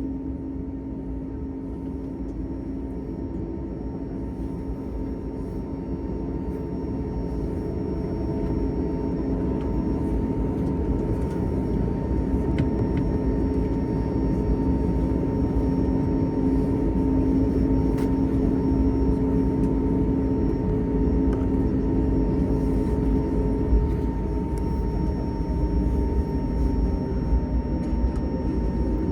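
Airbus A321neo cabin noise heard from inside: a steady engine and airframe rumble with a constant low hum and a faint higher whine. It grows gradually louder over the first half, then stays level.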